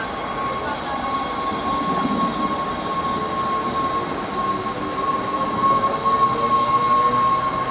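NS Sprinter Lighttrain (SLT) 2661 electric multiple unit pulling away from the platform. Its electric traction gives a steady high whine, with lower tones climbing slowly as it gathers speed, over the rumble of its wheels on the rails.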